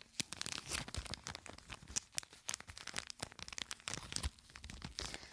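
Crinkly packaging handled close to the microphone: continuous rapid crinkling with many small sharp clicks.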